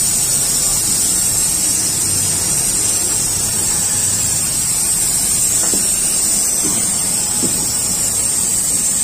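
Steady hissing noise with a low hum underneath, unbroken throughout, with faint voices in the background.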